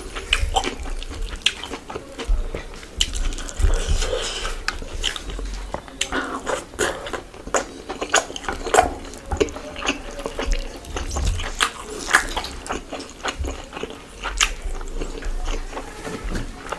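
Close-miked eating of mutton biryani: wet chewing and mouth smacks, heard as many short irregular clicks with occasional low thumps.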